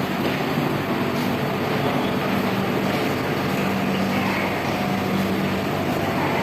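A steady low machine hum over an even wash of noise.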